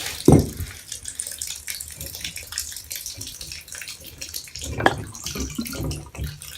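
Water running and splashing from the tub faucet's open valve body as the cartridge is pulled: the supply is not fully shut off, so the valve keeps leaking. Two knocks from the parts being handled, just after the start and about five seconds in.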